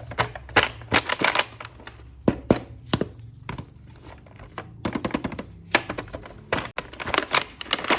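Hard plastic toy parts and packaging being handled: irregular sharp clicks and knocks, some in quick clusters, with some crinkling and tearing.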